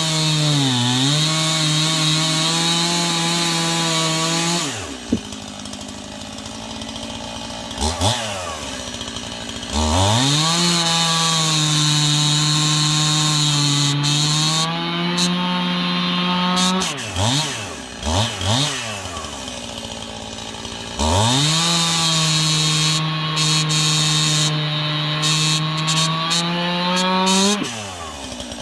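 Stihl two-stroke chainsaw bucking ash logs: it runs at a steady high pitch through a cut, drops to idle a little under five seconds in, is blipped, then makes two more long cuts with a short idle and revs between them.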